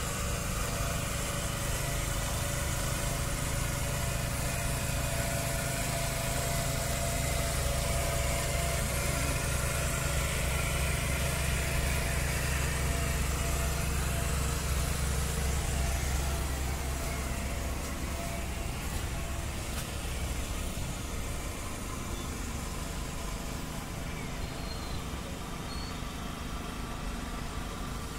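Boat engine running steadily, a low drone that eases off slightly about two-thirds of the way through.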